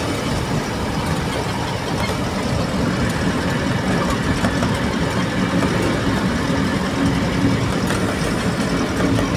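Eicher truck's diesel engine running steadily and road noise, heard from inside the cab while driving.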